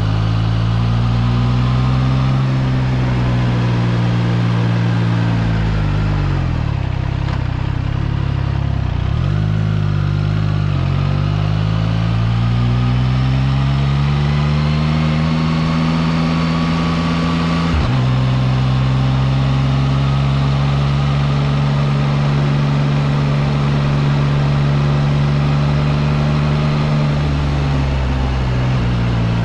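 Triumph Trident 660's inline three-cylinder engine pulling at low road speed. Its pitch dips and rises with the throttle a few seconds in, then climbs. A quick upshift a little past halfway drops the pitch, and the engine then runs steadily.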